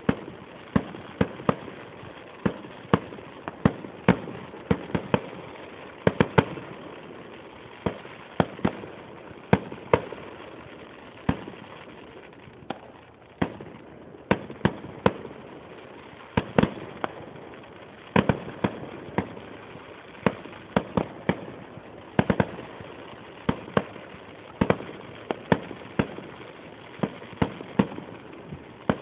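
Aerial fireworks shells bursting in a continuous display: dozens of sharp bangs at an irregular pace, often one to three a second.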